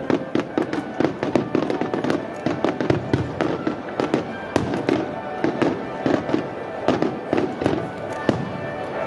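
Aerial firework shells bursting in quick succession: many overlapping bangs and crackles, several a second.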